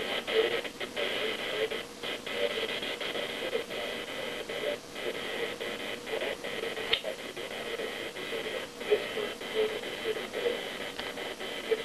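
Electric hair clippers buzzing steadily as they shave a client's head.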